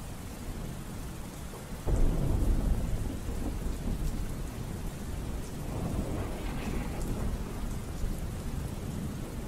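Steady rainfall with thunder: a loud low rumble breaks in suddenly about two seconds in and slowly dies away, and a softer roll of thunder follows around the middle.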